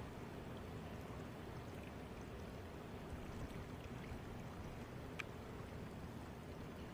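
Steady low rush of flowing water, with a single faint click about five seconds in.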